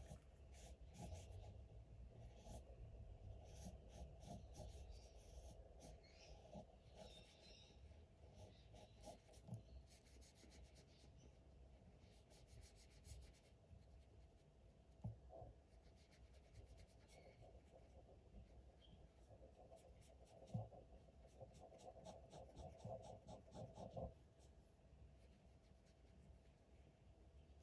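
Marker pen scratching and rubbing on paper in quick back-and-forth colouring strokes, faint, with a few louder knocks.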